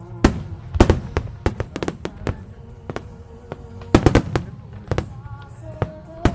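Aerial firework shells bursting in rapid succession, a string of sharp bangs with the heaviest clusters about a second in and again about four seconds in, over music playing underneath.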